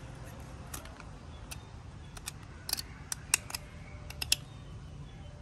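Kitchen knife cutting into the knobbly rind of a sugar apple, giving about ten small, sharp clicks at irregular intervals, most of them in the middle of the stretch.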